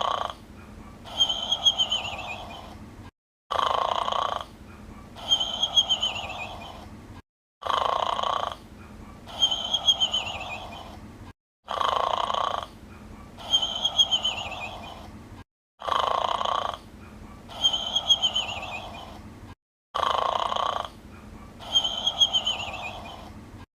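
Cartoon character snoring in a steady loop, about once every four seconds. Each snore is a rasping in-breath followed by a whistling out-breath that falls in pitch and fades, with a brief dead dropout before the next repeat.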